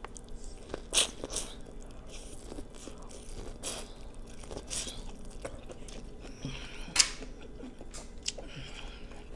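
Biting and chewing a piece of corn on the cob, with scattered crunchy clicks; the sharpest come about a second in, near four seconds and at seven seconds.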